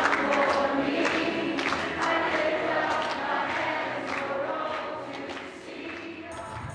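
A church congregation and worship team singing a worship song together, many voices in a reverberant hall, fading down near the end.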